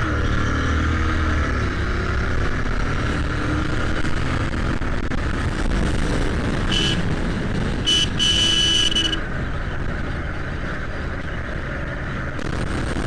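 Royal Enfield Continental GT motorcycle running at highway speed, with steady engine and wind noise. About halfway through, a vehicle horn gives two short honks and then a longer one of about a second.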